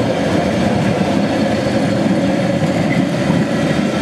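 Vintage tram ACEGAT 447 passing close by, its wheels running on the street rails with a steady rumble.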